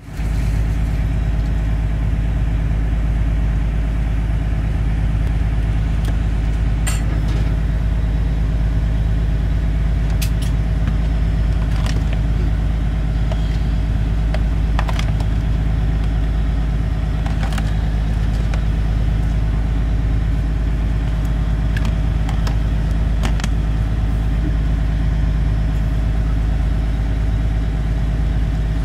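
Steady drone of a running boat engine, with a few brief clicks scattered through it.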